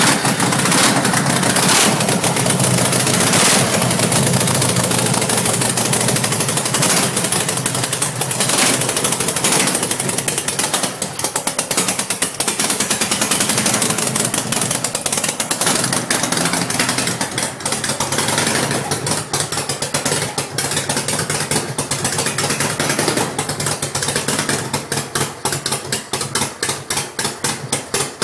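Harley-Davidson Panhead V-twin engine on a custom chopper running loud, with several brief revs in the first ten seconds, then settling to a slower, lumpy idle with distinct firing pulses near the end.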